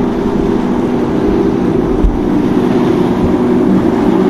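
Motorboat engines running steadily, several constant tones in a droning hum over a rushing wash of water and wind noise.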